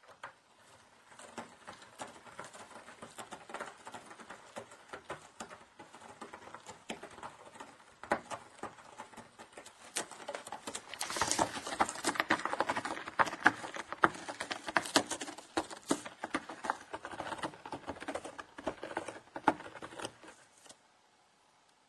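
A cat's claws scratching a corrugated cardboard scratching board in quick, rapid strokes, louder through the middle and stopping shortly before the end.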